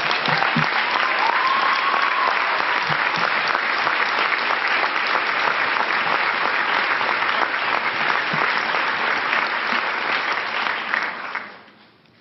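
A large audience applauding: dense, steady clapping that dies away in the last second or so.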